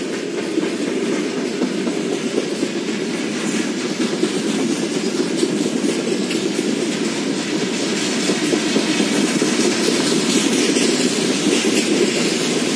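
Freight train's covered hopper wagons rolling past: a steady rumble of steel wheels on rail with fine clicking and clattering over the track, growing a little louder toward the end.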